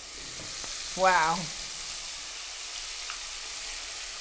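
Thin floured onion strings deep-frying in a couple inches of hot oil in an enamelled cast-iron Dutch oven: a steady, high sizzling hiss that builds over the first second and then holds.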